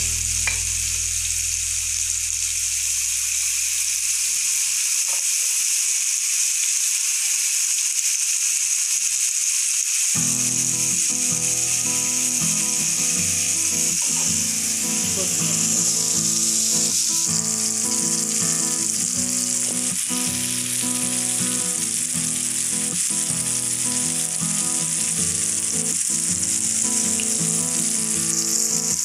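Spice-coated fish steaks shallow-frying in oil on a flat dosa griddle: a steady, even sizzle. Background music comes in about ten seconds in and plays under the sizzle.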